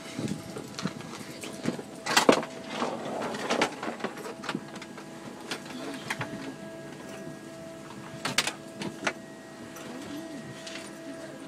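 Steady whine and hum of the Embraer ERJ-145 regional jet's cabin air and electrical systems while parked at the gate. Irregular knocks and rustles come from the handheld camera and bags brushing the seats in the aisle.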